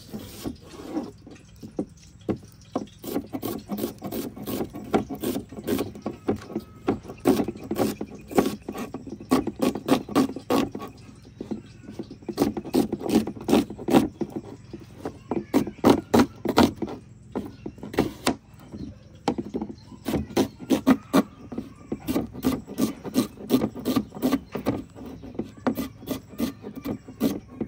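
Knife chopping onions on a wooden cutting board: a long run of sharp knocks, several a second, in spells with short pauses.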